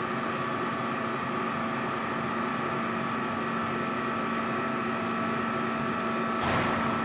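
Plastic rod milling machine line running with a steady mechanical hum, a few constant tones over an even whir. A brief louder rush of noise comes near the end.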